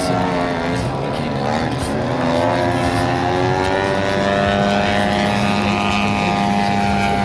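Radio-controlled aerobatic plane's DA-85 single-cylinder two-stroke gasoline engine running in flight. Its note dips about a second in, then climbs and holds steady as the throttle changes through the manoeuvres.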